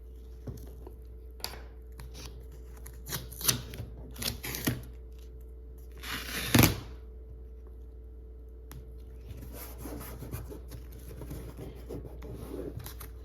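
Painter's tape being rubbed and pressed down onto a flatbed scanner's glass: scattered scratching and rubbing strokes with a few sharp clicks, and a louder rasp about six and a half seconds in. A faint steady hum runs underneath.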